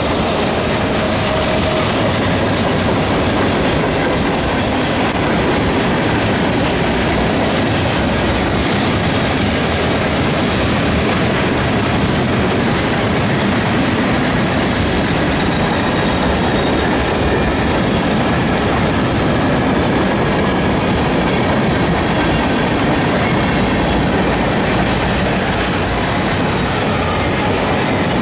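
Long freight train passing close by: a steady rumble and clickety-clack of steel wheels on the rails as hopper and tank cars roll past.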